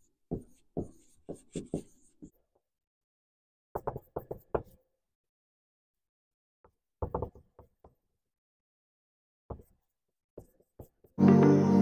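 Dry-erase marker writing on a whiteboard: short strokes and taps in bursts, with pauses between them. Background music comes in just before the end.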